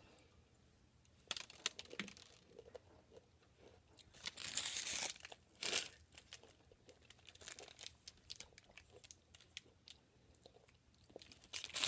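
Plastic candy wrapper of a Nerds Rope crinkling and rustling in short bursts, the loudest about four seconds in, with crunchy chewing of the Nerds candy between them.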